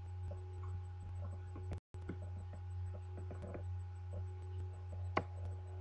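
Quiet room tone with a steady low hum, broken once by a short sharp click about five seconds in.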